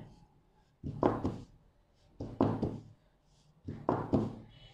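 Metal springform cake pan full of batter being tapped down on a tabletop: three short rounds of knocks about a second and a half apart, done to bring air bubbles out of the batter.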